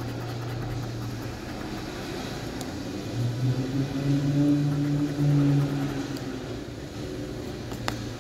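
A coin scraping the scratch-off coating of a lottery ticket, under a steady low hum that swells louder for a few seconds in the middle. A sharp click comes near the end.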